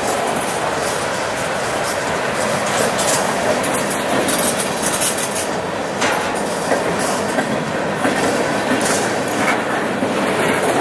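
Freight cars, boxcars and high-sided open-top cars, rolling past close by: a steady rumble and rattle of steel wheels on the rails, with repeated clicks as the wheels cross rail joints.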